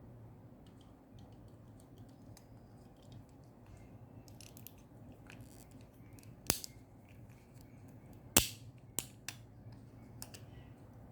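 Hard plastic clicks and light handling noises from Beyblade parts being handled. A few faint clicks come first, then a sharp click about six and a half seconds in, the loudest one about eight and a half seconds in, and two smaller ones just after.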